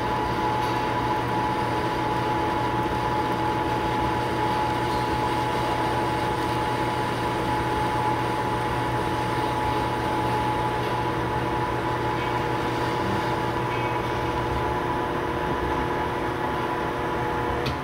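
Metal lathe running at a steady speed, turning a steel bar while the tool bit takes a cut and throws off curled chips: an even mechanical hum with a steady high whine over it.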